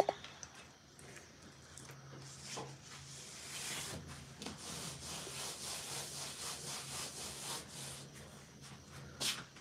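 A sharp knock, then quick, irregular scraping strokes that build up over the next few seconds and keep going, over a low steady hum.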